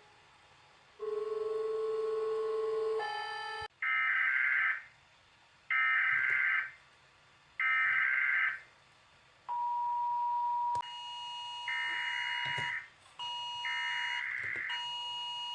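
Emergency Alert System broadcast audio: a steady tone about a second in, then three short buzzing data bursts about a second apart, like an EAS header. A steady alert tone follows, with two more bursts over it near the end.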